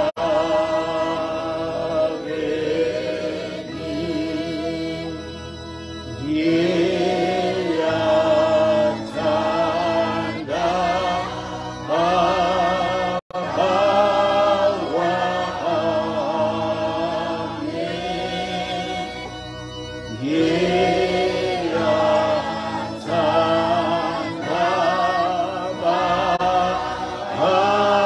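Slow Zulu hymn sung by a man's voice, with long held notes that waver in pitch. The sound cuts out for an instant about halfway through.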